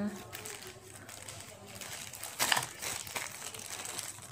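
Clear plastic bag crinkling as the headphones wrapped in it are handled, with a louder rustle about two and a half seconds in.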